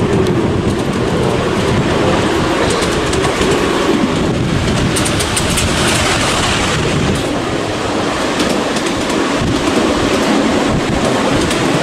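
A ride on a miniature railway train: steel wheels running and clicking over the small-gauge track. About five seconds in, a second miniature train passes close by and the running noise briefly grows brighter.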